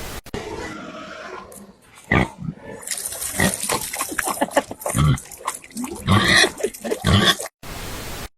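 An animal making several short calls in a row, with noise between them.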